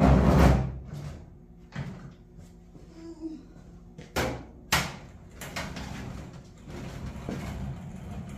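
Tool boxes and tools being handled and set down: a loud scrape dying away in the first second, then a string of sharp knocks and clunks.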